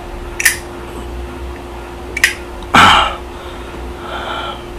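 Zippo lighter's metal lid clicking sharply twice as it is flicked open and snapped shut, with a short, louder rush of noise near three seconds in.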